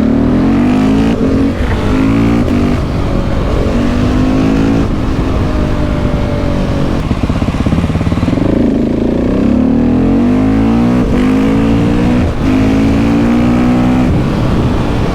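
KTM 690 SMC R single-cylinder engine through a Leo Vince exhaust, accelerating hard with revs that climb and drop at each quick upshift. It eases off about halfway, then pulls up through the gears again.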